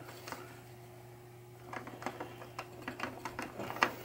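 Light, irregular clicks and taps of small metal hardware being handled as nuts go onto the bolts of a pinball pop bumper assembly, starting after a quiet first second and a half, with one sharper click near the end.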